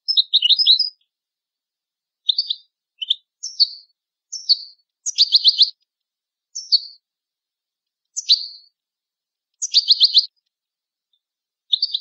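European goldfinch singing in short separate phrases with dead silence between them: trills, sharp chirps and twice a quick run of about six repeated notes. It is a clean tutor song of the kind played to teach goldfinch chicks their song.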